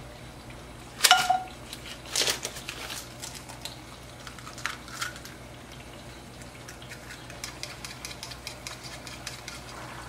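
Eggs knocked against a bowl to crack them, a few sharp knocks with a short ring, the loudest about a second in. From about two-thirds of the way through, a fork beats the egg in the bowl as a fast run of light ticks, over a steady low hum.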